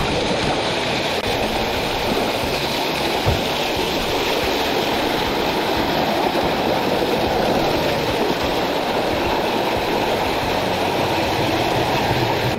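Mountain stream water rushing over rocks close by, a loud, steady rush with no let-up.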